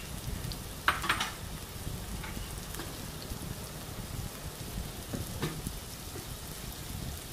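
Chopped onions sizzling steadily in hot oil in a nonstick kadai, with a few short sharp knocks about a second in and again a little after five seconds.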